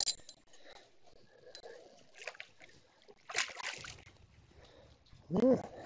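Water splashing in several short bursts as a hooked channel catfish thrashes at the end of the line, with a brief grunt-like human sound near the end.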